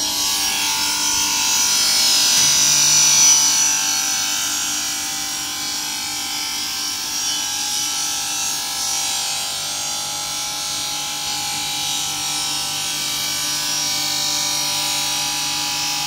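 Electric motors of an artificial-stone cutting machine running steadily, a high whirring hiss over a few steady tones. A low hum joins about two and a half seconds in.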